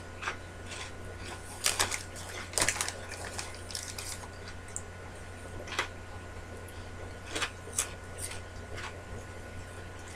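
Crunchy cheese curls (Cheetos Crunchy) being bitten and chewed close to the microphone, with some crinkling of the foil snack bag. The crackles come in a few short clusters, the loudest about two and three seconds in, over a steady low electrical hum.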